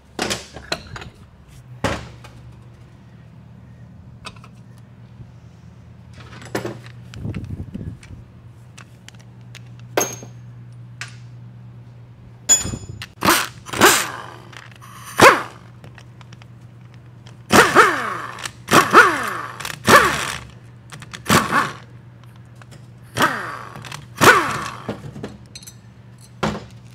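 Sharp metal clanks and knocks, a dozen or so, some ringing briefly, as the front pump of a Ford 4R70W automatic transmission is worked out of its case and handled on the bench. A steady low hum runs underneath.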